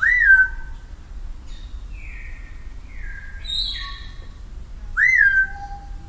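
Parrot whistling: a loud note that swoops up and then down and holds at the start, the same call again about five seconds in, and a run of softer, level whistled notes between.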